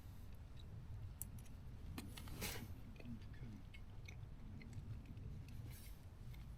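A person quietly chewing a mouthful of rehydrated pouch chicken curry, with scattered small clicks and a short louder burst of noise about two and a half seconds in.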